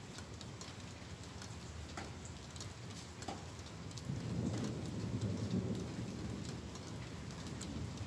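Thunder rumbling low, swelling about four seconds in and slowly fading, over scattered raindrops ticking on a nearby surface.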